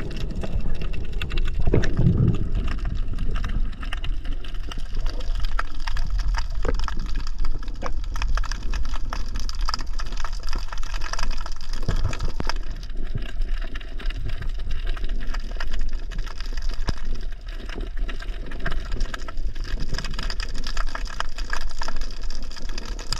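Water gurgling and sloshing close to the microphone as a spearfishing diver moves through the sea, with a few irregular low thuds, the strongest about two seconds in.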